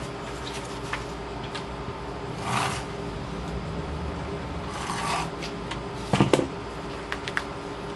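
Paper and card stock being handled and rubbed, with a Glue Glider Pro tape runner drawn across the card in short scraping strokes about two and a half and five seconds in. Light taps are scattered through, and a louder knock comes about six seconds in. A steady low hum runs underneath.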